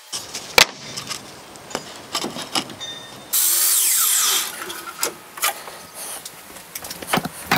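Thin plywood being handled, with scattered knocks and clicks. About three seconds in, a powered miter saw cuts through quarter-inch plywood for about a second, loud and high-pitched, and the knocking resumes afterwards.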